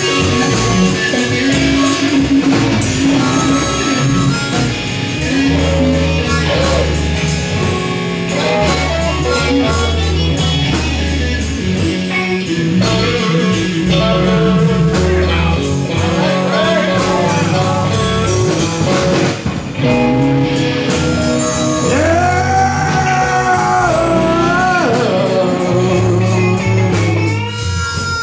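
Blues-rock music: guitar over bass and drums, with a lead line that bends and wavers in pitch near the end.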